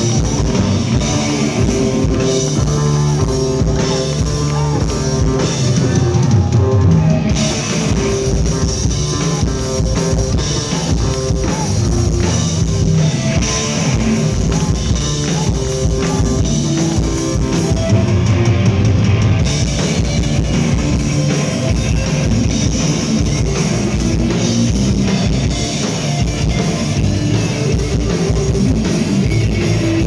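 Heavy metal band playing live and loud: electric guitars, bass and a drum kit, heard from among the audience.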